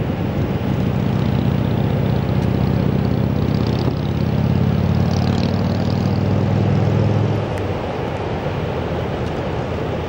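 An engine running steadily, a low hum over the noise of surf and wind on the microphone; the engine sound stops abruptly about seven and a half seconds in.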